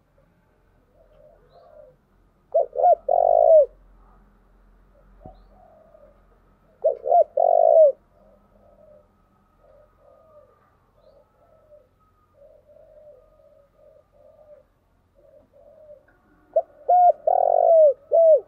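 Spotted dove cooing: three loud phrases of a few short coos each, about three, seven and seventeen seconds in, with softer coos between them.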